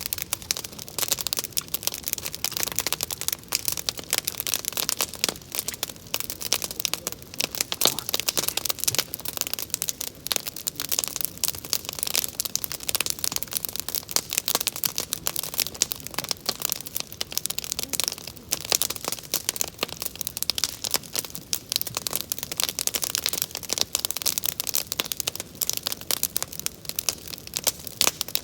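Wood bonfire crackling, a dense, irregular stream of small snaps and pops.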